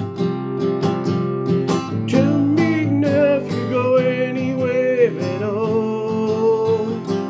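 Cutaway steel-string acoustic guitar strummed in a steady rhythm, with a man's voice singing a held melody over it from about two seconds in.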